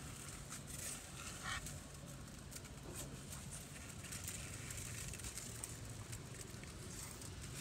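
Quiet waterside ambience: small ticks and drips of water lapping around the kayak, over a low, steady rumble and faint hum.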